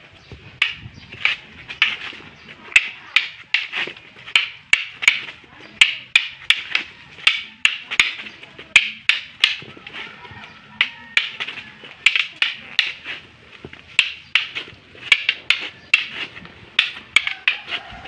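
Rattan arnis sticks clacking against each other in a fast double-stick sinawali drill: sharp wooden clacks in a steady rhythm of about two to three a second, beginning about half a second in.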